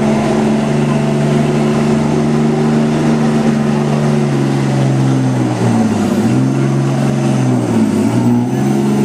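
Diesel pickup truck engine running hard at high revs, pulling a weight-transfer sled. About halfway through and again near the end the engine pitch dips briefly and climbs back as it bogs under the load.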